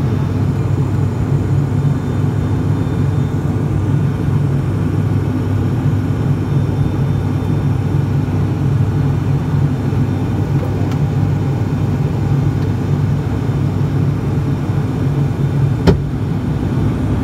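Steady drone of an ATR 42-600's turboprop engines and propellers, heard inside the passenger cabin, low in pitch with a steady hum. A single sharp click comes near the end.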